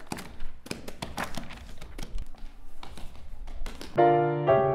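An uneven run of light taps, three or four a second, then a piano starts playing notes about four seconds in.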